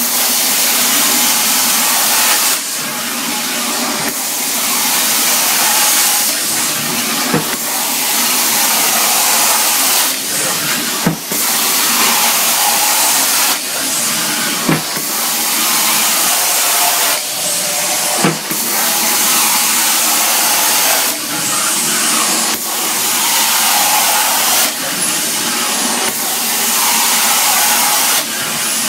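Carpet-cleaning extraction wand sucking air and water out of a carpet: a loud, steady rushing hiss. Its tone shifts about every three to four seconds as the wand is worked in strokes, with a light knock at some of the changes.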